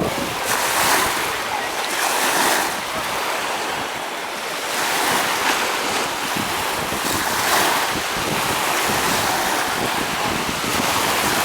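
Waves washing onto the shore of the Sea of Azov, swelling and easing every couple of seconds, with wind buffeting the microphone.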